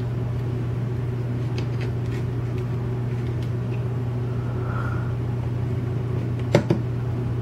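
Steady low hum, with a few faint small clicks and one sharper tap about six and a half seconds in, as a brass lock cylinder is handled and tapped over a wooden pin tray to shake its springs out.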